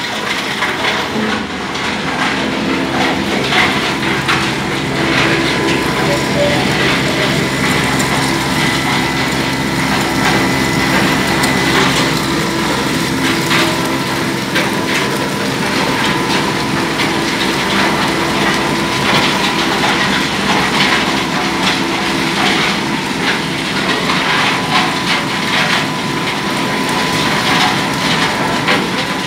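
Gypsum powder mill machinery running loudly and steadily: a constant hum with a high steady tone over it, and continual rattling and knocking.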